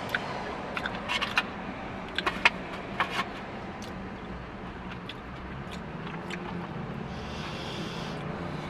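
Close-up eating sounds: several sharp mouth smacks and crunches in quick clusters during the first three seconds, from licking fingers and chewing tortilla chips. A steady low car-cabin hum runs underneath, and only the hum is left after that.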